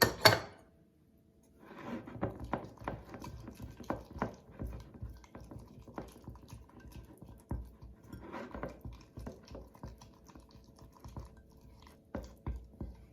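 A spoon stirring a thick, sticky paste of tahini and cream in a small bowl: irregular wet squelches and clicks of the spoon against the bowl, starting about two seconds in after a brief louder sound at the very start.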